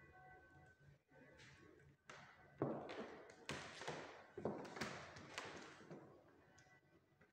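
A series of dull thumps and taps, starting a couple of seconds in and coming roughly once a second, each with a short echo.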